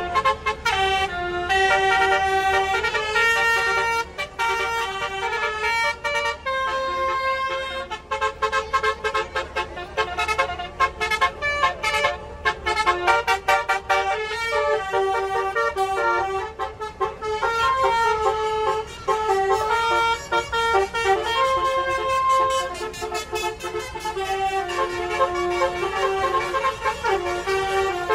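Tour bus's multi-tone musical "telolet" horn playing a tune of quick, changing notes, over a low steady rumble.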